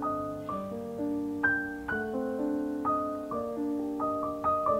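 Background piano music: a gentle melody of single notes, about two a second, each ringing out over held lower notes.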